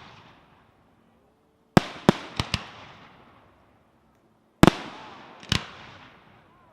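Aerial firework shells bursting. A loud bang comes about two seconds in, with three quicker, smaller cracks right after it. Another loud bang comes past halfway and one more a second later, each trailing off in a fading echo.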